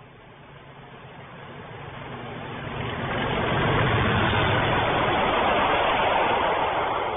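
Two Class 37 diesel locomotives, English Electric V12 engines, passing at speed while hauling two Class 73 locomotives. The engine note grows as they approach, the passing train is loudest from about four to six seconds in, and the sound starts to fade near the end.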